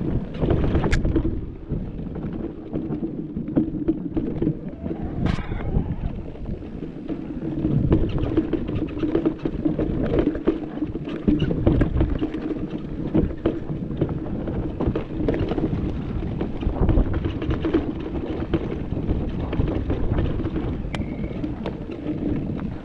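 Mountain bike ridden fast down rough dirt singletrack, heard through a chest-mounted action camera: wind buffeting the microphone over the constant rattle and knocking of the bike and tyres on the bumpy trail, with a few sharper clacks.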